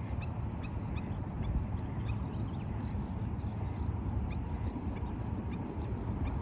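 A flock of birds calling: many short, high calls repeated in quick succession over a steady low rumble.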